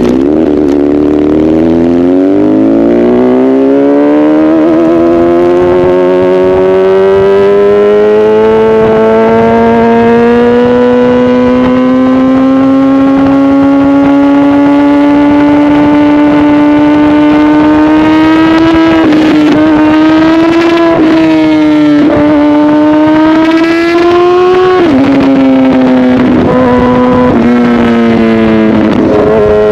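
Honda CBR1000RR inline-four with an aftermarket SC-Project exhaust, running loud and pulling: its note climbs slowly and steadily for most of the time, then dips briefly a few times and drops away near the end as the revs fall.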